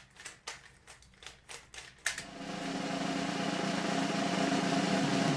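Plastic Rubik's Cube being twisted fast: a quick run of sharp clicks, several a second, with near silence between them. About two seconds in, a steady sound with held tones starts and slowly grows louder.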